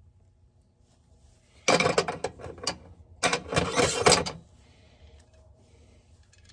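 Small metal parts and hand tools clattering as they are handled and rummaged through, in two rattling bursts of about a second each, the first near two seconds in and the second just after three seconds.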